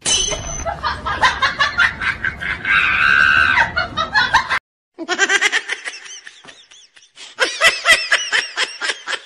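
Rapid, high-pitched laughter in quick repeated bursts. It comes in two stretches, broken by a brief silent cut about halfway through.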